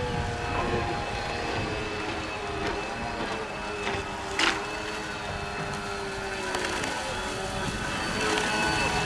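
Radio-controlled model boat motors running, their whine wavering up and down in pitch as the throttle changes, with several pitches overlapping. About four and a half seconds in there is a brief sharp rush of noise.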